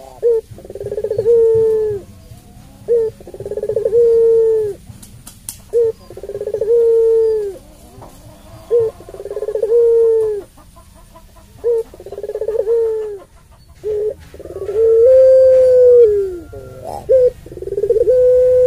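Puter pelung, a white collared dove kept for its long voice, cooing over and over: each call is a short note followed by a long, drawn-out coo that drops in pitch at the end, coming about every two to three seconds, with the last coos held longest.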